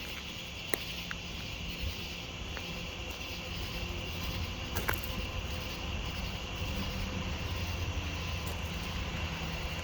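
A steady low rumble like a running vehicle, under a constant high chirring of crickets, with two sharp clicks, one near the start and one about halfway.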